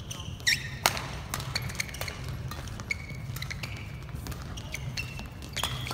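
Badminton rally: sharp racket hits on the shuttlecock, the loudest two about half a second and just under a second in, with short squeaks of players' shoes on the court mat. A steady low hum of the hall runs underneath.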